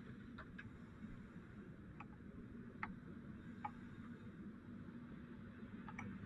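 Steady low hum of a fire engine running, with a handful of scattered sharp ticks.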